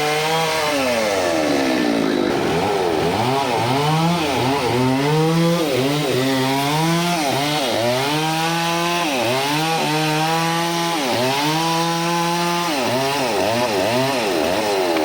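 Bonhoeffer two-stroke chainsaw engine running loud, its pitch rising and falling about once a second as the throttle is worked on and off.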